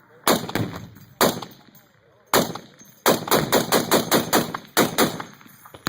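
Gunfire on a machine-gun firing line: a few separate shots, then a quick string of about eight shots at roughly five a second about three seconds in, followed by a couple more.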